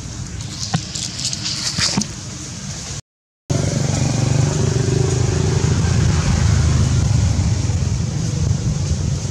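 Steady low rumble of a motor vehicle engine, starting abruptly after a brief drop to silence about three seconds in; before it, light rustling and a few clicks.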